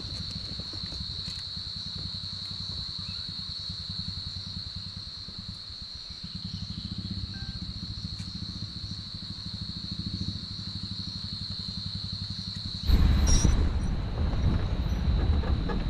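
Safari jeep's engine running, under a steady high insect drone from the forest. About 13 seconds in, the insect drone stops and the vehicle noise suddenly gets much louder.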